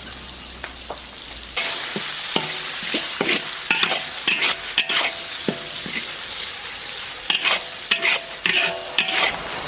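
Chopped pig small intestine stir-frying in hot oil in a wok: steady sizzling, with the metal spatula scraping and knocking against the wok again and again. The sizzle gets much louder about a second and a half in, as the stirring starts in earnest.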